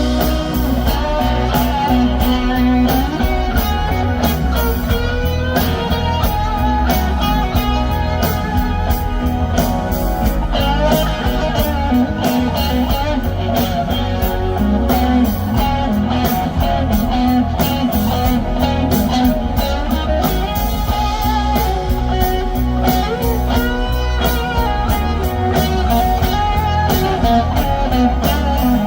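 Live rock band playing an instrumental passage, an electric guitar lead playing sustained, bending notes over steady drums and bass.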